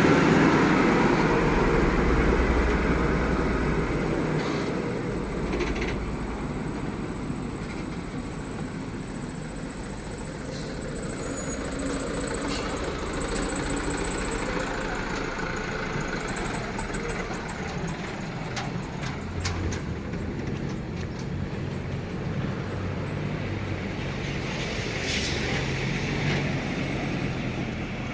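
Motor vehicle engines on a rough road: loudest at the start and fading over the first several seconds, then a steadier, lower engine drone with a few short clicks.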